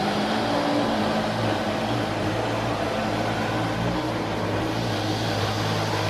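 Neato D6 robot vacuum running, its suction motor and brush giving a steady hum.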